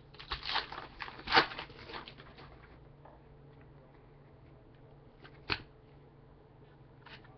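Trading card pack wrapper being torn open and crinkled for the first two seconds or so, loudest about a second and a half in, then cards being handled quietly with one sharp tap about five and a half seconds in.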